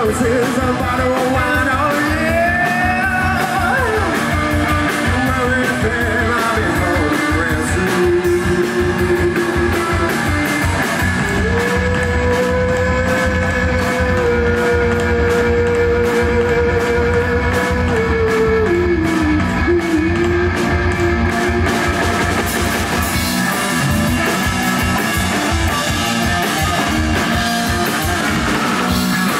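Rock band playing live: electric guitar and drum kit, with a lead line of long held notes that bend up and down in pitch, the longest held for about six seconds mid-way.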